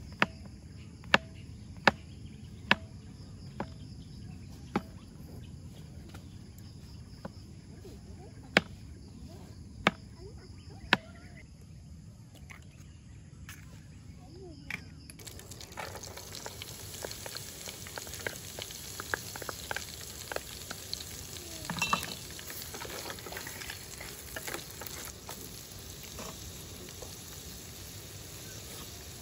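A knife chopping mushrooms on a wooden cutting board: a string of sharp single chops, about one a second at first, then more spread out. About halfway it changes to the steady sizzle of diced onion and mushrooms frying in a pan.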